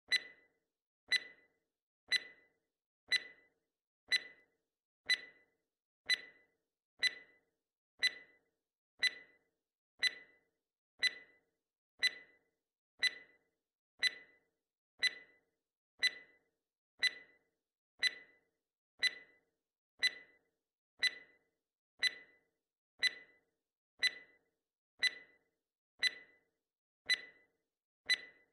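Countdown-timer ticking sound effect: a sharp, short tick once a second, each one the same, keeping time with a 30-second quiz countdown.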